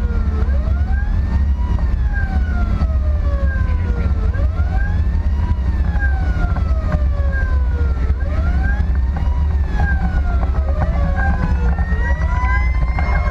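An emergency vehicle's siren on a slow wail, rising and falling about every four seconds, over a heavy low engine and road rumble from inside the responding vehicle. Just before the end, a different, faster siren pattern begins.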